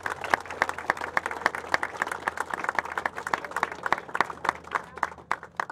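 Crowd applauding: many hands clapping at once, thinning to scattered claps near the end.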